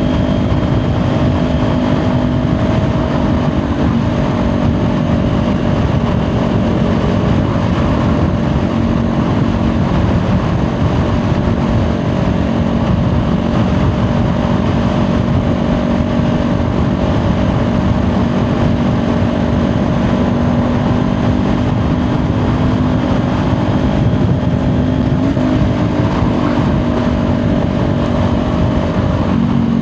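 Kawasaki Ninja 400's parallel-twin engine running at a steady highway cruise, its note shifting slightly near the end, under heavy wind and road noise on the microphone.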